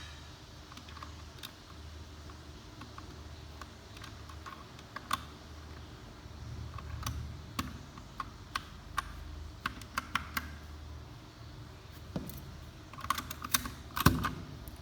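Keys being pressed on an Akko 3068 Silent mechanical keyboard with double-shot PBT keycaps: scattered single keystrokes, then a quick flurry near the end.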